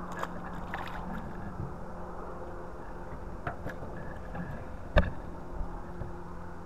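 Handling knocks in an aluminum jon boat as a smallmouth bass is swung aboard: a few light clicks, then one sharp knock against the hull about five seconds in, over a steady faint hum.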